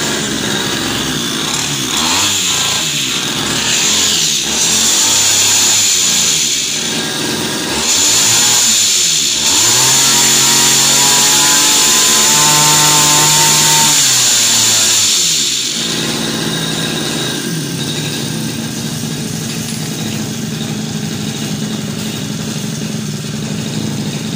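Brush cutter's small two-stroke engine on a test run with a new clutch shoe set and clutch bell fitted. The throttle is blipped up and down a few times, held at high revs for about five seconds, then released to a steady idle.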